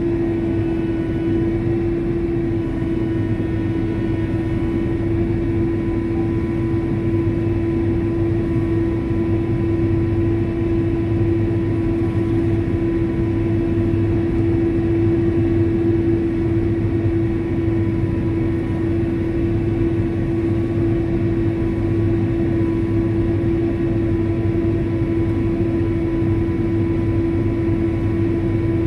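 Steady drone of a farm sprayer's engine and drivetrain heard from inside its enclosed cab, with a strong constant hum.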